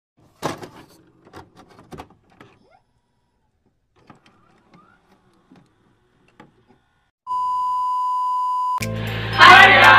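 Intro sound effects: scattered short clicks and crackles of a glitch effect, then a steady high test-card tone lasting about a second and a half. Music with a heavy bass line starts abruptly near the end.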